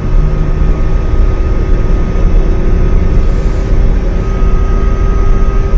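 Cab interior of a fully electric refuse truck accelerating with the pedal floored: a deep, even rumble with a steady electric-drive whine running through it.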